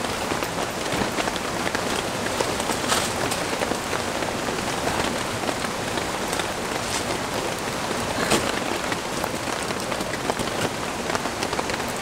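Steady light rain falling on the fabric of an 800°C Pelta Shelter L tent, with many small drop ticks over a steady rush that includes a flowing mountain stream.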